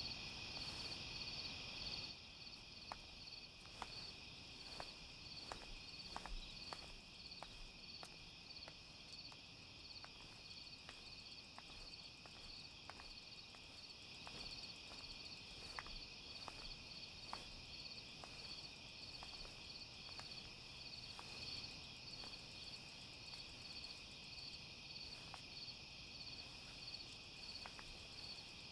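Crickets chirping steadily, with soft footsteps at an even walking pace through the first half.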